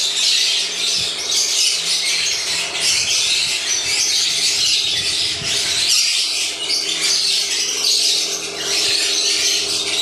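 Many conures squawking at once: a continuous din of harsh, overlapping parrot calls.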